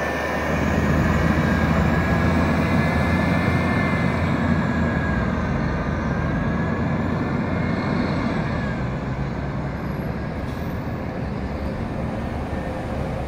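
2002 Gillig Phantom transit bus with a Cummins ISM engine pulling away, its exhaust note covered by the steady rush of its rooftop air-conditioning, with a thin high whine on top. The sound swells in the first couple of seconds, then fades slowly as the bus draws off.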